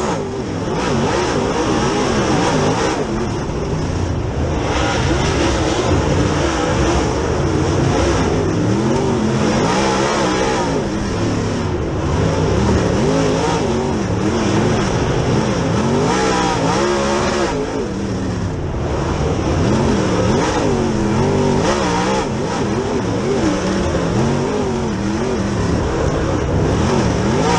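Dirt super late model race car's V8 engine heard from inside the cockpit at racing speed, its pitch rising and falling again and again as the driver goes off and back on the throttle through the turns.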